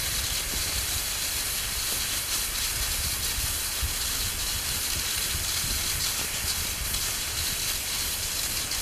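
Wind buffeting the microphone with an irregular low rumble, over a steady hiss of skis gliding on snow while being towed by a husky.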